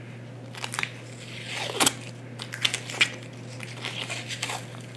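Blue painter's tape being peeled off a freshly spray-painted fishing rod near the cork grip and balled up in the hand: a run of irregular small crackles and rustles, the sharpest about two seconds in.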